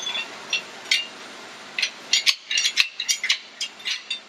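Steel bars levering the number two main bearing cap off a 5.3 LS V8 block: a run of irregular, sharp metal clinks and scrapes with short ringing, coming thickest about halfway through.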